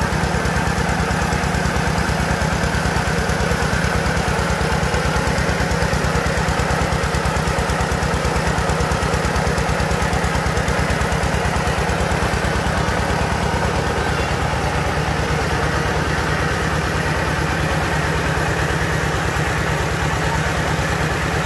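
Engine of a mobile rice mill running steadily under load with a fast, even beat, driving the hulling and polishing machinery while paddy is fed into the hopper.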